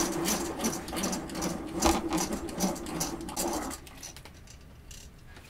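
Hand-cranked rotary egg beater whirring through thick pancake batter in a stainless steel bowl, with rapid clicking and a steady hum; it stops a little under four seconds in.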